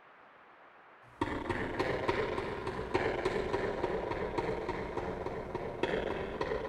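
Footsteps sound effect: a quick, dense run of steps starting suddenly about a second in, with scuffing between the footfalls.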